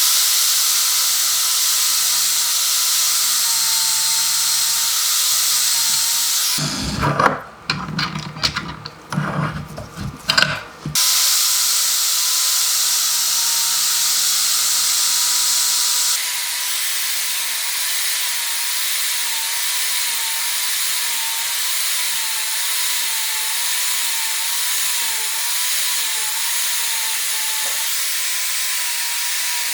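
A power tool runs steadily with a high hiss, working on the rusty metal of a pipe vise. It stops for a few seconds about seven seconds in, when irregular metal knocks and clanks are heard, then runs steadily again.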